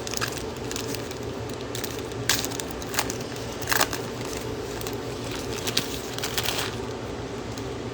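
Trading-card packs and cards being handled, with a few sharp crinkles and snaps of a plastic pack wrapper over a steady low hum.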